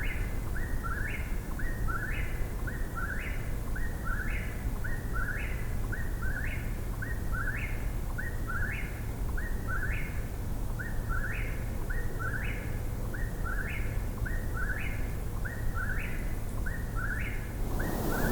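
Eastern whip-poor-will singing its whistled "whip-poor-will" phrase over and over, about one phrase a second, each ending in a sharp upward sweep. A low steady background rumble lies under it, and a hiss sets in just before the end.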